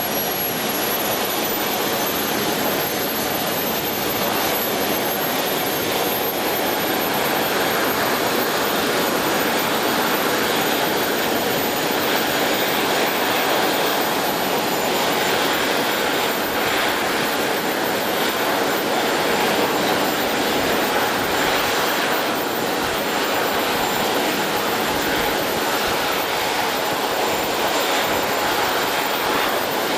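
Model RC jet turbine running: a steady jet rush with a thin, very high whine that climbs slowly in pitch over the first half, then holds steady.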